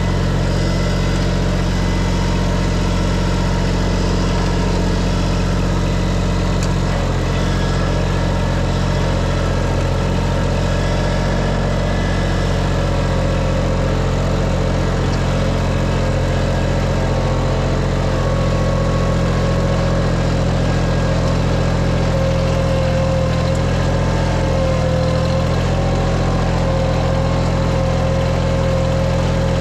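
Tractor engine running at a steady speed, with a thin whine that becomes clearer about halfway through.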